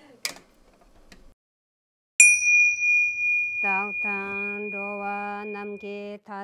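A small bell struck once, ringing with a clear high tone that fades over about four seconds. About a second after the strike a low voice begins a steady, monotone Buddhist chant under the ringing. A faint clink comes just before.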